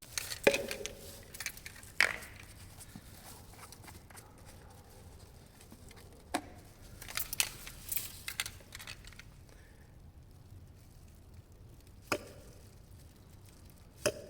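Scattered sharp clicks and knocks, with a cluster of lighter taps around the middle, from containers and tools being handled while gear oil is measured out.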